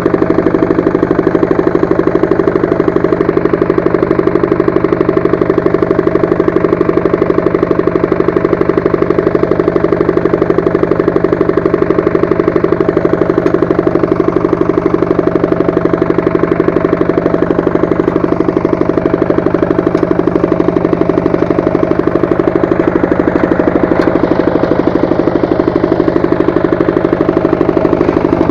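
Walk-behind tractor engine running steadily while driving a rotary tiller, with an even stream of rapid firing pulses throughout.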